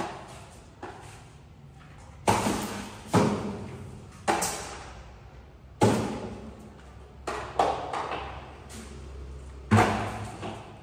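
A series of sharp thuds and knocks at irregular intervals, about eight in ten seconds, each echoing in a bare tiled room.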